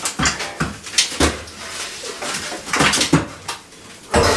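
A steel beam being lifted by hand into place against metal props, giving a run of sharp metallic clanks and knocks, loudest near the end, with short grunts of effort from the lifters.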